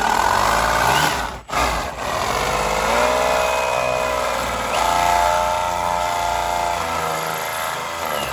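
Cordless drill spinning a hole saw in reverse against vinyl siding. The motor's whine shifts up and down in pitch as the trigger and load change, with a brief stop about a second and a half in.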